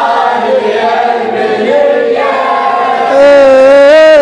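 Group of male mourners chanting a lamentation refrain in unison. About three seconds in, a single male reciter's voice comes in over them, holding a long, wavering, ornamented note.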